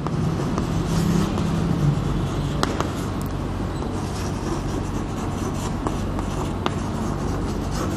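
Chalk writing on a blackboard, a few sharp taps as the chalk strikes the board, over a steady low background rumble.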